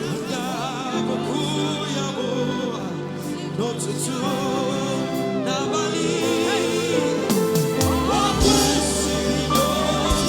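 Live gospel music: a singer with vibrato over sustained backing voices and instruments, with a deep bass coming in about eight seconds in.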